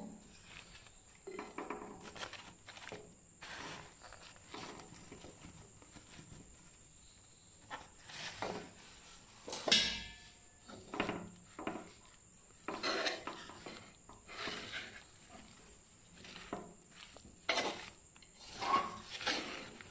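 Wooden spatula scraping and tapping against an unglazed clay pot as cut onions go in and are stirred through a thick, oily brinjal moju. Separate scrapes and taps come every second or so, the loudest about ten seconds in.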